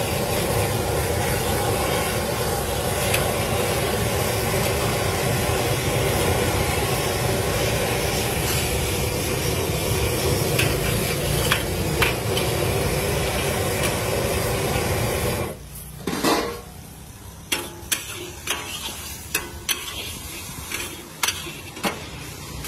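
A ladle and spatula stirring a thick yellow mixture in a large wok over a steady loud roar with sizzling. About fifteen seconds in, the roar cuts off suddenly. What is left is separate clinks and scrapes of the utensils against the wok.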